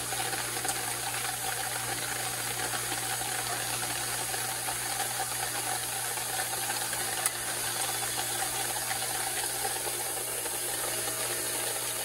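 Air-conditioner condensing unit humming steadily under an even hiss while its condenser fan stands still. The compressor and condensing coil have become very hot.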